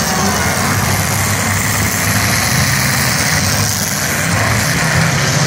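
Engines of several demolition derby cars running loudly together, a steady low rumble.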